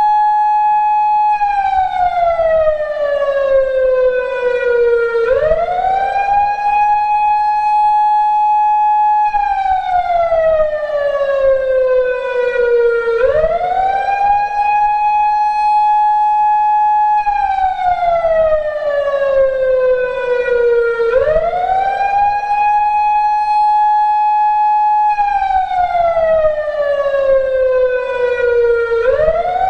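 PATLITE SAP-50 electronic siren amplifier sounding a slow wail through its speaker. The tone holds high for about four seconds, falls slowly for about four seconds, then sweeps quickly back up, repeating roughly every eight seconds.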